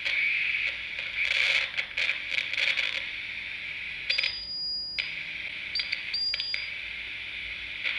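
Circuit-bent walkie-talkie's speaker hissing static with crackles and clicks, breaking into a high steady beep a bit past four seconds in and twice more briefly around six seconds.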